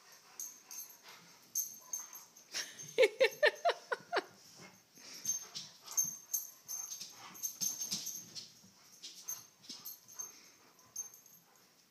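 Rottweiler whining and grumbling: a quick run of about six short pitched calls about three seconds in. Soft rustling and scattered clicks fill the rest.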